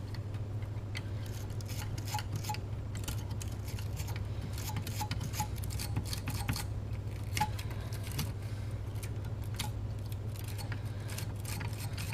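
Small steel wire brush scrubbing corrosion off the metal battery contacts of a transistor radio: a run of irregular scratchy strokes and light clicks, over a steady low hum.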